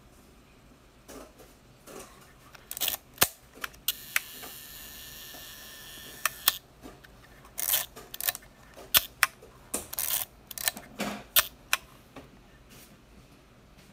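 Konica SIII rangefinder camera being worked by hand: clusters of sharp mechanical clicks from its leaf shutter and levers. In the middle, a steady whirr runs for about two and a half seconds and ends in a click.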